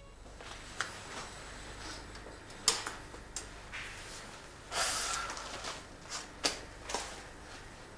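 Quiet room with a handful of scattered small clicks and knocks, the sharpest a little under three seconds in, and a short burst of noise about five seconds in.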